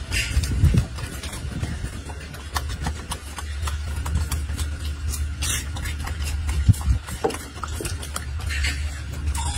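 Golden snub-nosed monkey chewing lettuce: scattered short, crisp crunches and clicks over a steady low rumble.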